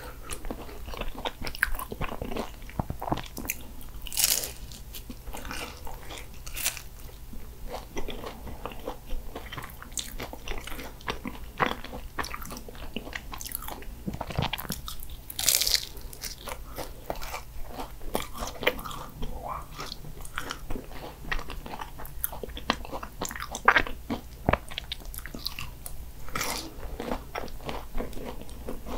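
Portuguese egg tarts (pastel de nata) being eaten: the flaky pastry crust crunches and crackles with each bite, between stretches of chewing, with a few louder crunchy bites.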